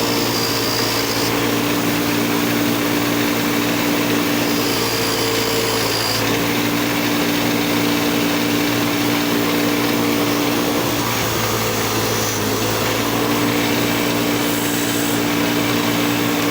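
Bench grinder running with a wire wheel, brushing rust off a pair of steel lineman's pliers held against it: a steady motor hum under a harsh wire-brushing hiss.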